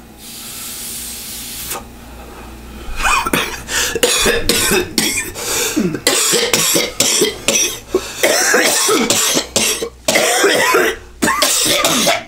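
A long breathy draw on three HHC disposable vape pens held together, then a hard coughing fit of repeated loud, harsh coughs that runs from about three seconds in until the end: the coughing brought on by the vapor hit.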